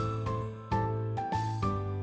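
Background music: a light instrumental tune with a steady bass line and a simple melody changing note a few times a second.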